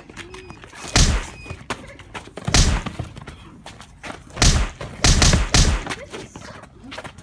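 Heavy punch impact thuds in a boxing fight, about six hits, the first few a second or two apart, then coming faster in a quick flurry in the second half.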